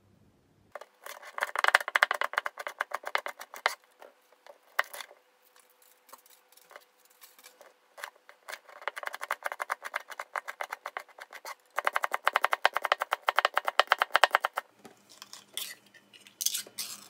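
A chef's knife rapidly chopping green chili pepper and scallion on a plastic cutting board, in three long runs of quick, even strokes with short pauses between. A few lighter knocks come near the end.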